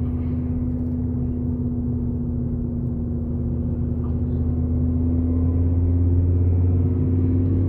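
A vehicle engine's steady low drone, rising slowly in pitch and loudness.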